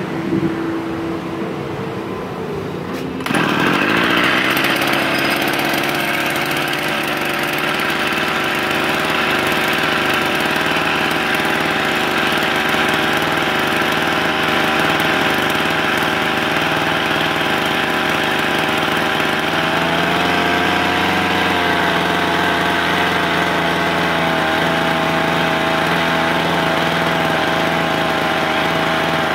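Kawasaki TG25 brush cutter's small two-stroke engine running: at a lower speed at first, then opened up sharply about three seconds in and held at high revs.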